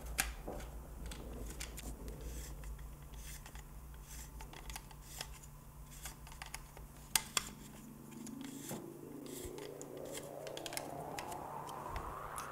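Light clicks and taps of a polymer Magpul forend and its forend nut being handled and screwed onto a Remington 870's magazine tube, with two sharper clicks about seven seconds in. A tone rises steadily in pitch through the last few seconds.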